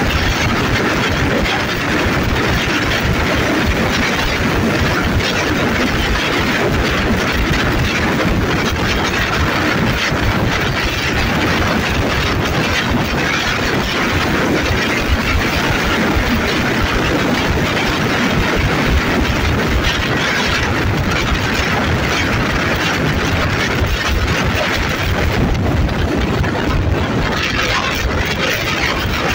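Thai State Railway Alstom diesel-electric locomotive running steadily under way, its engine and the wheels on the rails heard from the carriage coupled right behind it.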